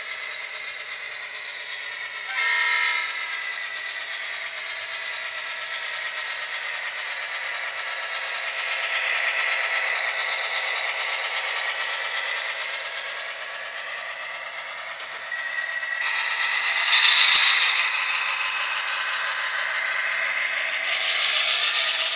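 MTH HO-scale model train running steadily along the layout track, with a continuous whir of motor and wheels. About two and a half seconds in there is a short blast of the locomotive's sound-system horn, and around seventeen seconds there is a louder, higher burst.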